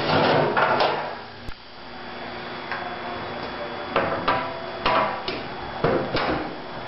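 A series of knocks and clatters, like hard parts being handled and fitted together, over a faint steady hum. The clatter is loudest in the first second, then comes as single knocks spaced about half a second to a second apart.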